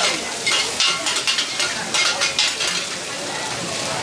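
Mee goreng being stir-fried in a wok: a metal spatula scrapes and tosses against the wok in quick repeated strokes, about two or three a second, over a steady sizzle.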